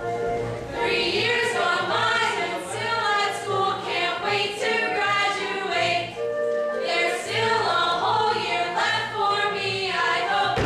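A mixed chorus of teenage boys and girls singing a show tune together.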